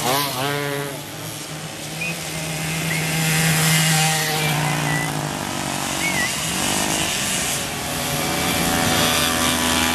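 Two-stroke Mobylette moped engines racing past, their pitch rising and falling as they rev and go by, several in turn.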